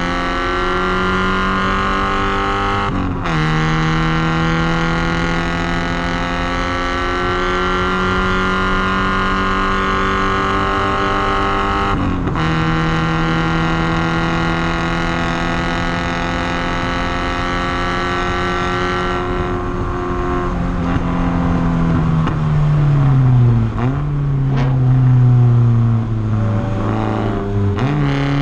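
Porsche 944's four-cylinder engine pulling under hard acceleration, its pitch climbing slowly, with upshifts about 3 and 12 seconds in. Later the pitch falls as the car slows, with two quick throttle blips on downshifts, and the engine pulls again at the very end.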